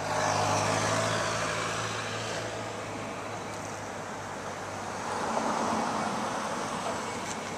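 Street traffic: a vehicle passing with a low engine hum, loudest in the first two seconds, then a second swell of road noise from another passing vehicle about five seconds in.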